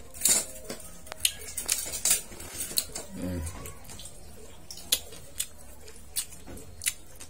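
Irregular sharp clicks and clinks of tableware at a meal: dishes, chopsticks and snail shells tapping against each other, about a dozen times, the loudest near the start.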